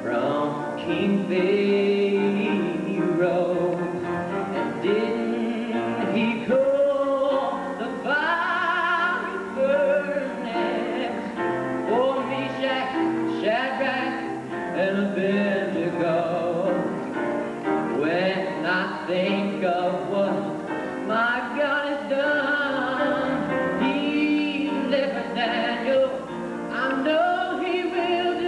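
A teenage boy singing a solo melody with vibrato into a handheld microphone.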